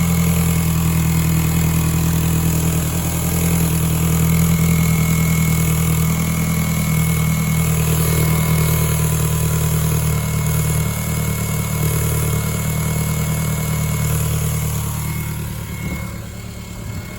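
VW GTI's 1.8-litre turbocharged four-cylinder (AUM) engine idling unsettled soon after starting, with the misfire on starting that the owner suspects comes from a leaking or faulty secondary air injection pump. Near the end it gets quieter as it settles down.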